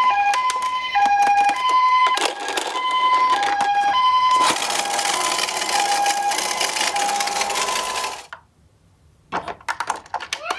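Toy ambulance's electronic two-tone siren, the Japanese-style hi-lo 'pee-poh' call, alternating a higher and a lower note about every half second. A steady whirring noise joins it about halfway through. The siren cuts off after about eight seconds, and a few clicks follow as the toy's buttons are pressed.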